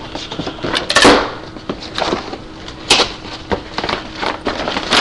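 Packaging being handled and pulled away from a cardboard box: rustling with irregular sharp knocks and clicks, the loudest about a second in and again near three seconds.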